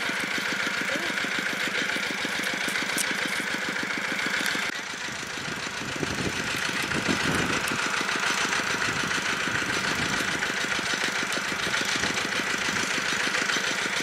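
Engine of a water pump draining a pond, running steadily with an even, rapid beat; it dips briefly in level about a third of the way in.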